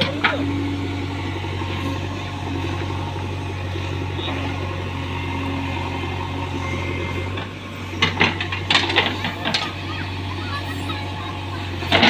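JCB 3DX backhoe loader's diesel engine running steadily under hydraulic load as the backhoe digs a trench. About eight seconds in there is a run of knocks and scrapes as the bucket bites into and drags through the soil, with another at the very end.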